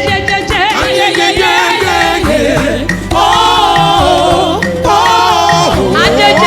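Live gospel praise music: a choir singing over band accompaniment with a steady bass.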